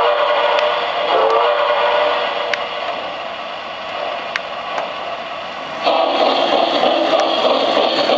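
Lionel Reading T1 model steam locomotive with a DC motor: two whistle blasts in the first two seconds, then about six seconds in it sets off, and the steady, louder running noise of its motor and wheels on the track takes over.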